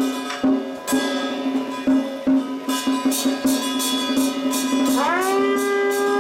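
Traditional ritual music: a wind-instrument melody over a steady drone, sliding up to a long held note near the end, with percussion striking about three times a second through the second half.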